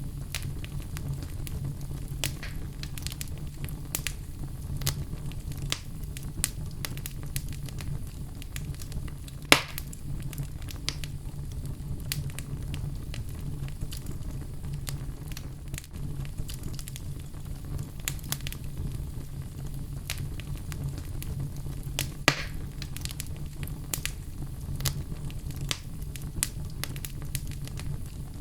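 Wood fire in a fireplace crackling: frequent small snaps and clicks over a low steady rumble, with two louder pops, one about a third of the way in and one about three quarters in.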